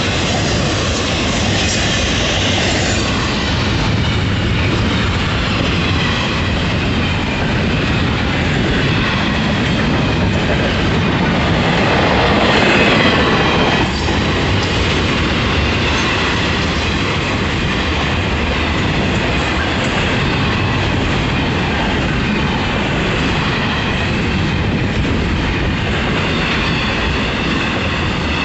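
Freight train rolling past at speed: a steady loud rumble and rush of steel wheels on the rails, swelling briefly about halfway through.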